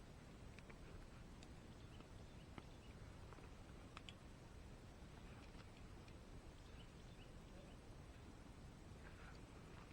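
Near silence: quiet outdoor background with a few faint, scattered light clicks.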